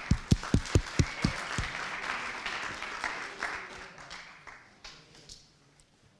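Audience applause: a few loud, quick claps close to the microphone in the first second and a half over the wider clapping of the room, which dies away over about five seconds.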